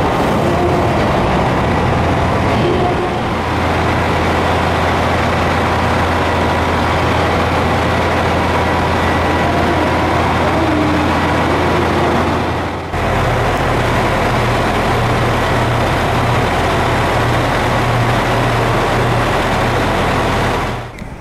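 JR Hokkaido KiHa 283 series diesel express railcar idling: a steady low engine hum under a loud hiss. About two-thirds through, the hum turns deeper and pulsing.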